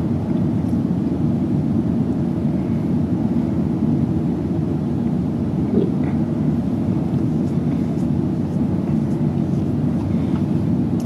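Steady low rumbling drone at an even level, with no breathing rhythm standing out in it.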